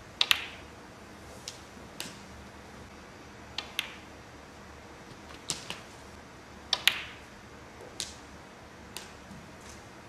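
Snooker shots being played: the sharp clicks of a cue tip striking the cue ball and the cue ball striking object balls. They come as a string of clicks, often in quick pairs, every second or two.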